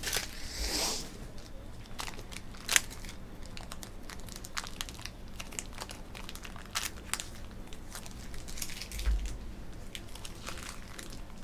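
Trading cards and their plastic packaging handled by hand: crinkling and rustling with many small clicks, a sharp click a little under three seconds in, and a dull bump on the table about nine seconds in.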